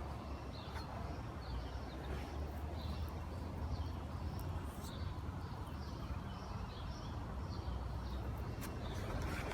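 Outdoor ambience: small birds chirping repeatedly over a steady low rushing noise.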